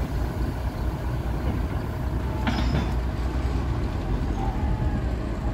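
The Balboa Island car ferry's engine running with a steady low rumble as the ferry comes in to its landing, with a brief sharper noise about two and a half seconds in.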